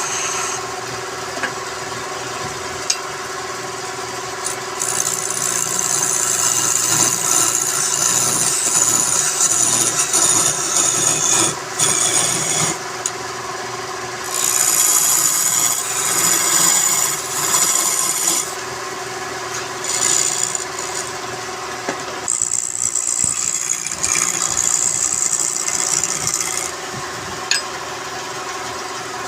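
Wood lathe running with a steady hum while a tool works the spinning wooden workpiece, giving a rasping hiss that comes and goes in passes of several seconds.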